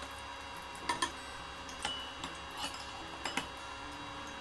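Light metal clinks of a stainless steel ladle and mesh strainer knocking against a pot and bowl, about five scattered taps, one ringing briefly, over a steady faint hum.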